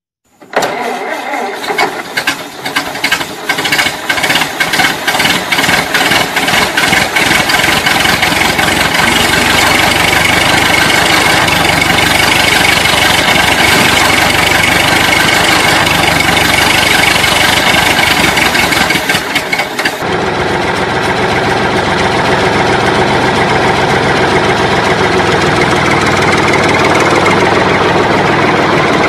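A tractor engine sound effect starting up. It has uneven knocks for the first several seconds, then settles into a loud, steady run, changing slightly about twenty seconds in.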